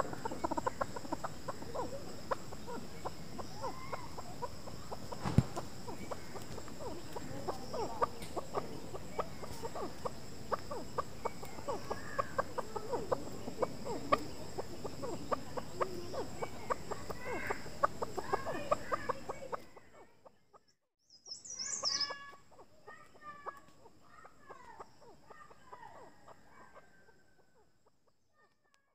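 Chukar partridge clucking: a long, rapid run of short chuk-chuk calls over a steady high whine. About twenty seconds in the calling stops, then comes one sharp call and a few fainter calls that fade away.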